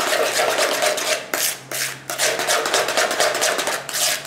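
A metal spoon beating egg into creamed butter and sugar in a plastic mixing bowl, hand-mixing instead of using the electric mixer. The strokes scrape and clack against the bowl in a fast, even rhythm, with a couple of brief breaks near the middle.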